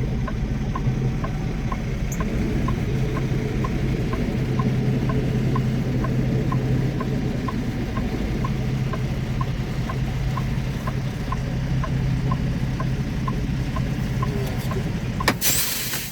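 Semi truck's diesel engine running at low speed while reversing, with a short beep repeating about one and a half times a second from the reverse warning. Near the end a loud burst of air hiss, typical of the truck's air brakes being set.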